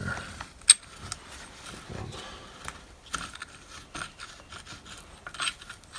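Metal parts of a chain hoist's brake mechanism being worked by hand: scattered light metallic clicks and scrapes, with a small cluster of clicks about five and a half seconds in, as a seized threaded part is turned loose.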